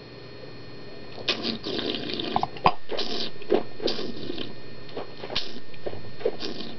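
Red wine being tasted: a series of short, wet slurps as air is drawn through the wine in the mouth to aerate it, with a couple of sharp clicks.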